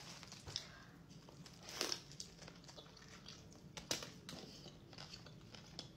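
Faint crinkling of a paper sandwich wrapper as it is handled, with soft chewing and a few short crunches from eating a loaded sandwich.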